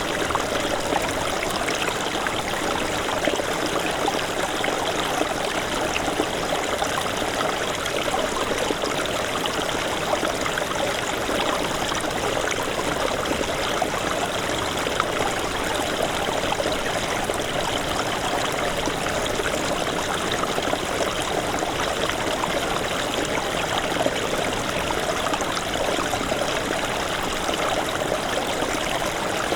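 Small stream of snowmelt water babbling and trickling over stones, a steady, even flow.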